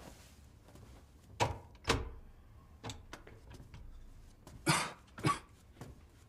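Quiet room with two soft thuds and a few light footsteps, then two short coughs from a man who is ill.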